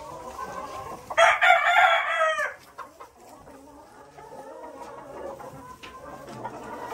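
A rooster crows once about a second in. The crow is loud, lasts about a second and a half, and drops in pitch at the end. Around it a flock of hens clucks softly.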